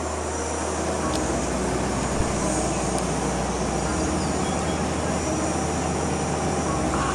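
Steady low hum and even hiss of a car running, heard from inside, with no sudden events.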